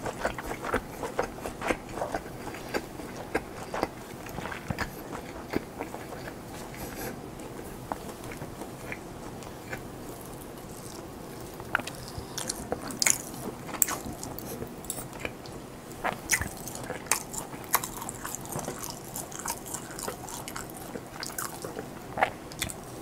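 Close-miked chewing and biting of food: irregular wet mouth clicks and crunches, with the louder clicks in the second half.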